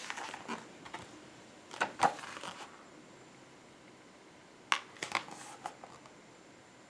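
Paper picture book being handled and held up: short rustles and taps of the pages, in two little clusters about two seconds in and again around five seconds in, over quiet room tone.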